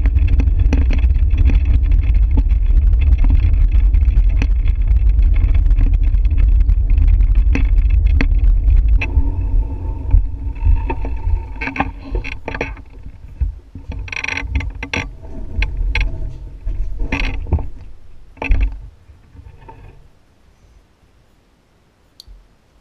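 Wind buffeting the microphone of a handlebar-mounted camera on a moving bicycle, a loud steady rumble. About nine seconds in it drops away as the bike slows, leaving scattered rattles and clicks that die down to near quiet near the end.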